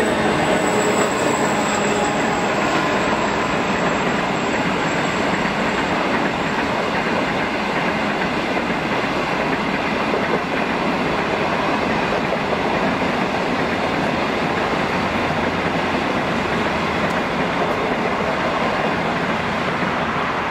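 Train of ballast hopper wagons rolling past, a steady rumble and clatter of wheels on the rails.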